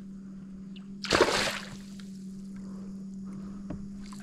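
A hooked peacock bass (tucunaré) splashing at the water's surface as it is landed beside the kayak: one sharp splash about a second in, followed by faint trickling water.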